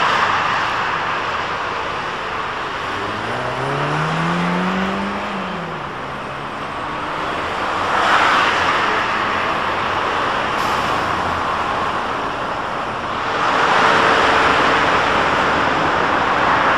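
Articulated Mercedes dual-mode buses passing close by on a guided busway amid road traffic noise, loudest as a bus goes past about eight seconds in and again near the end. About three seconds in, a bus's drive climbs in pitch and then drops away.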